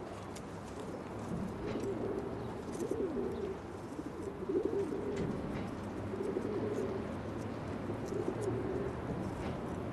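Pigeons cooing, a string of low warbling coos repeating every second or two.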